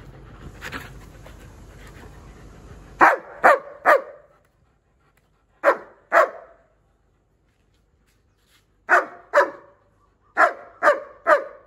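German Shepherd dogs barking at a ball held up above them, about ten short sharp barks in groups of two and three. Before the barking, in the first three seconds, a dog pants.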